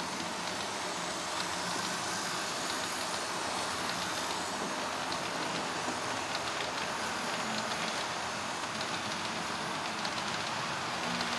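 HO scale model train of loaded coal hopper cars rolling steadily along the track, a continuous rushing rumble of small wheels on rail with faint, irregular clicks.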